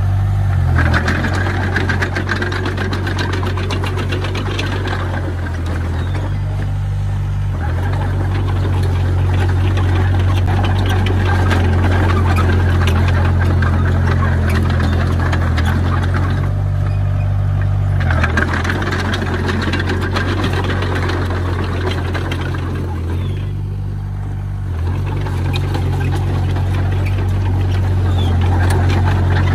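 Diesel engine of a Komatsu D20P bulldozer running with a steady low hum and a clatter over it. Its note shifts several times, around a second in, near eight seconds, about eighteen seconds in, and twice more around twenty-three to twenty-five seconds.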